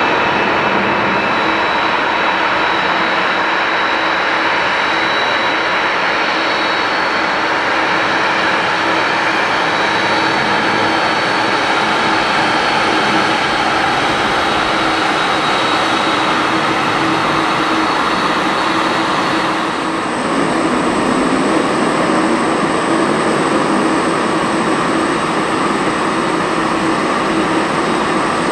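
Boeing 747-400's four General Electric CF6-80C2 turbofans at taxi power as the jet rolls past close by: a steady, loud jet rumble with a whine. About twenty seconds in, a thin high whine joins it.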